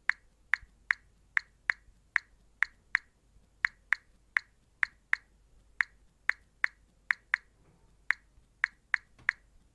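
Smartphone touchscreen keyboard's key-press sound: short, sharp clicks, one per tap, at an uneven typing pace of two to three a second.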